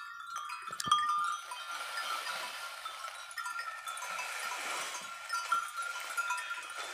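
Small metal bells jingling and ringing on and off over a faint steady hiss, with one sharper knock about a second in.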